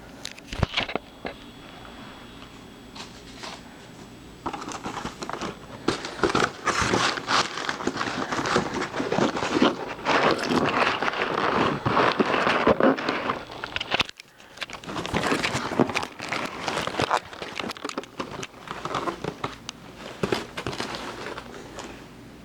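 Packaging being handled and opened by hand while unboxing a model train boxcar. A few clicks and taps come first, then a long stretch of dense crinkling and rustling. It pauses briefly about two-thirds of the way through, then resumes and tapers off near the end.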